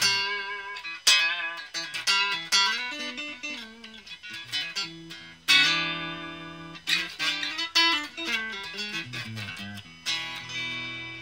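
Electric guitar played through a Raizin Sound 'Vintage Champe Box' effects pedal: picked single-note lines mixed with struck chords, the biggest chords coming about a second in, five and a half seconds in and ten seconds in, each left ringing out.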